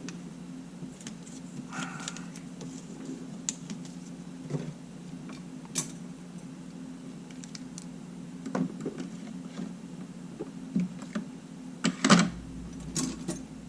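Scattered small clicks and taps of a camera body being reassembled with a small screwdriver and parts on a workbench, the loudest cluster about twelve seconds in, over a steady low hum.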